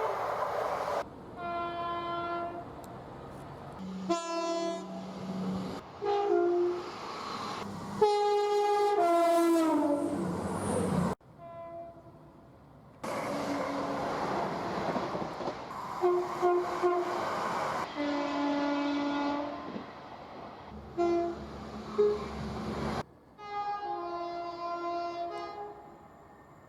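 A rapid run of short clips of British trains sounding their two-tone horns. Each clip is cut off abruptly every few seconds, with the rumble and hiss of passing trains under them. One horn near the middle falls in pitch as its train passes.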